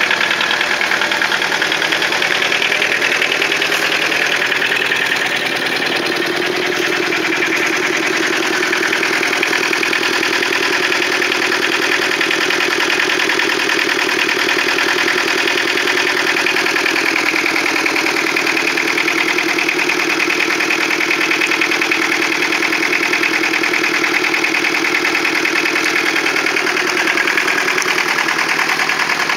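Microcar MC2 microcar's engine idling steadily, a noisy, fast, even clatter.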